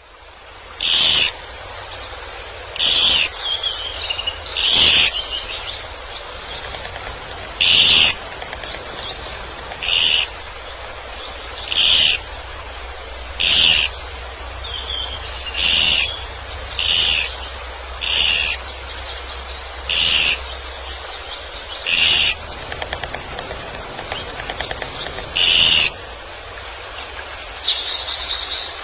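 A forest bird repeats a short, high call about every two seconds, with fainter twittering between some of the calls and a different chattering call near the end.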